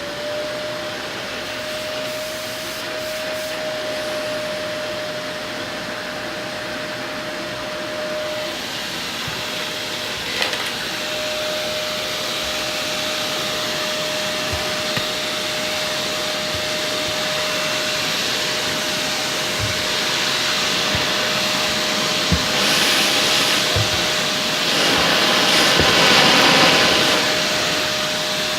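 Shark Navigator upright vacuum cleaner running on a rug, its motor whine settling to a steady pitch right at the start over a constant rush of airflow. A few light knocks come through, and the rushing gets louder for a few seconds near the end.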